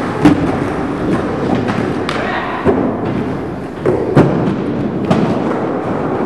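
Skateboard wheels rolling on the skatepark ramps, with several sharp clacks and thuds of the board; the loudest come about a quarter second in and again about four seconds in.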